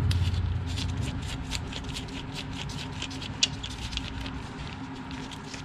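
Light metallic clicks and taps, a few a second, with one sharper click about three and a half seconds in, as small parts of a Holley 2300 two-barrel carburetor are worked loose and taken off during disassembly.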